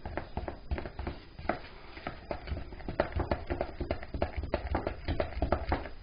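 Spoon stirring and working a thick chocolate icing of powdered sugar in a plastic bowl, knocking and scraping against the bowl in quick, irregular clacks, several a second.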